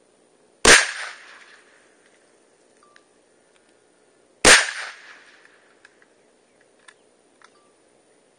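Two rifle shots from an AR-15, about four seconds apart, each followed by a short echo fading over about a second.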